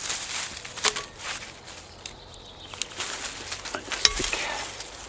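Dry fallen leaves rustling and crunching as a wooden branch and a folding saw are handled and moved on the forest floor, with a few sharp clicks and knocks, the sharpest about four seconds in.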